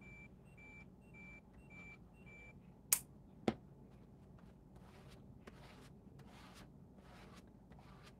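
An electronic beep repeating about twice a second, which stops about two and a half seconds in. Two sharp clicks half a second apart follow, then soft rubbing of a hand over paper.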